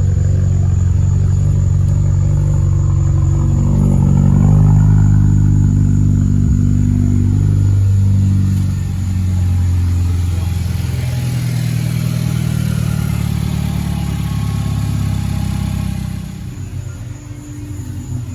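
Cadillac ATS's turbocharged engine running and being revved. The pitch climbs about three and a half seconds in, drops back around eight or nine seconds in, and the sound gets quieter near the end. It is still misfiring after a fresh set of spark plugs.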